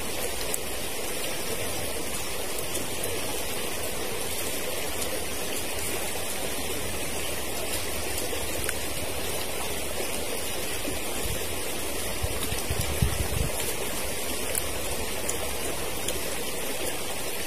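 A forest stream rushing steadily over rocks, with a brief low thump about thirteen seconds in.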